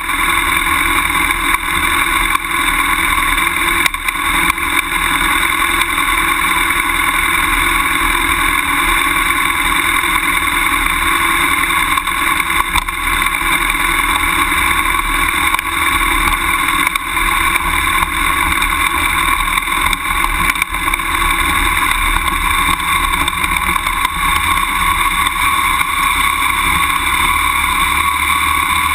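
BMW F800GS motorcycle's parallel-twin engine running at a steady, unchanging speed as the bike rolls along a grassy dirt track, with a few brief knocks from bumps.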